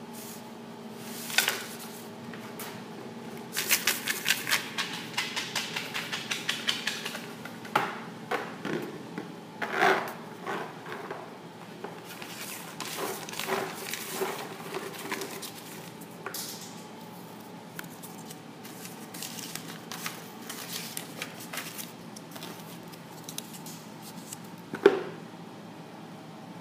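Hands handling paper, a spiral-bound sketchbook and sticky notes: rustling, with a quick run of ticking rustles a few seconds in and a few sharp taps, over a steady low hum.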